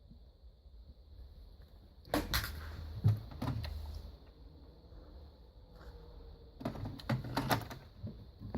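Two short bursts of clattering knocks and clicks, one about two seconds in and another near the end, from the plastic novelty phone being handled, over a faint steady high whine.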